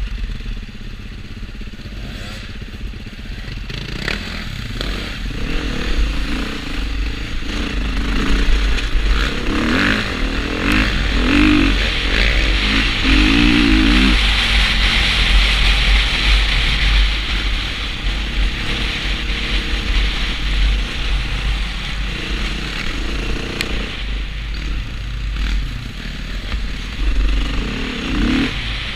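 Dirt bike engine running under way, its revs rising and falling in several runs at gear changes, with a heavy, constant low wind rumble on the helmet-mounted camera.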